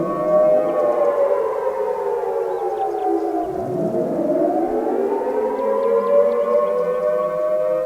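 Civil defense warning siren wailing in several overlapping tones, sliding down in pitch over the first few seconds and winding back up again about halfway through.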